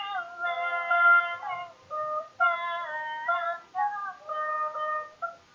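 A woman singing high held notes into a microphone, sliding in pitch between them in short phrases, accompanied by a sape, the Borneo boat lute.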